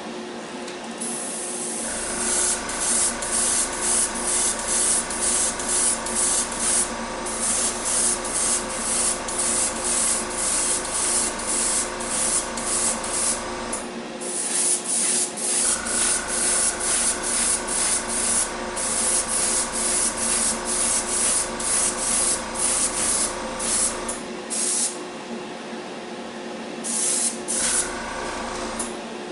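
Airbrush spraying primer in short, rapid bursts of hiss, about two a second, as the trigger is pulled and released over a small model part. A steady hum runs underneath, stops about 14 seconds in, returns shortly after, and stops again about 24 seconds in.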